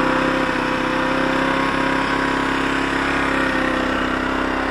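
Zontes Tiger 125cc motorcycle's single-cylinder four-stroke engine idling steadily.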